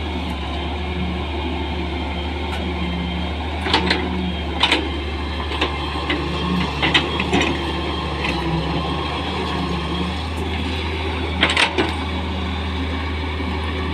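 Daewoo wheeled excavator's diesel engine running steadily under load as it digs and scrapes earth, with a few sharp clanks from the bucket and arm, the clearest around 4 and 11.5 seconds in.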